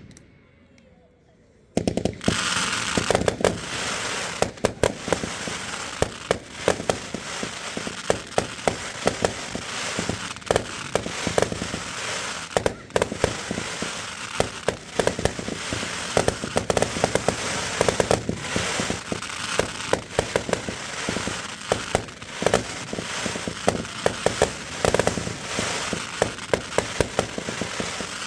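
Fireworks display: after a short quiet, about two seconds in a rapid, dense barrage of bangs and crackling starts and keeps going without a break.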